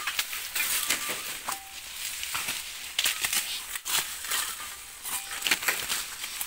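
Dry sugarcane leaves and stalks rustling and crackling as they are pushed aside and handled, with frequent sharp snaps and cracks.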